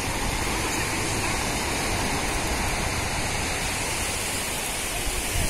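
Steady wash of small surf waves breaking along a sandy shore.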